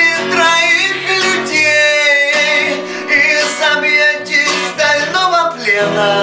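A man singing with a strummed acoustic guitar.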